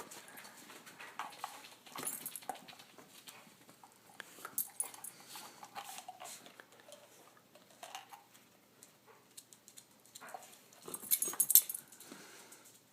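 A dog snapping at soap bubbles: scattered sharp clicks of its jaws and movement, with a couple of short faint whines, and a louder cluster of clicks about eleven seconds in.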